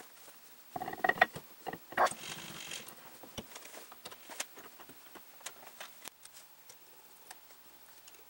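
Metal clanks and knocks about a second in, then a short scraping slide, as the T-slotted table of an Atlas horizontal milling machine is handled and fitted onto its saddle. Light scattered clicks and taps of metal parts follow.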